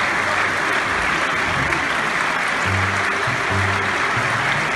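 Theatre audience applauding steadily. A few short, low humming tones sound underneath in the second half.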